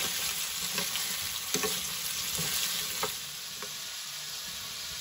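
Diced potatoes and carrots sizzling in hot oil in a stainless steel frying pan, stirred with a spoon that clicks and scrapes against the pan about five times. After about three and a half seconds the stirring stops and only the steady sizzle goes on.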